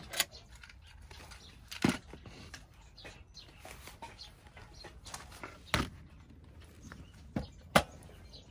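About five sharp knocks and clunks at uneven intervals, like hard objects being set down or bumped, over faint background noise.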